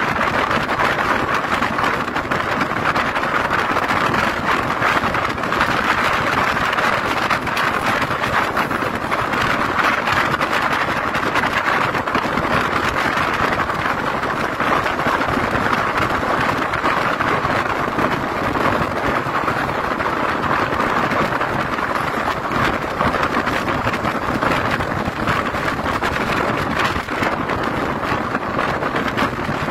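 Steady rushing road and wind noise from inside a vehicle travelling at highway speed.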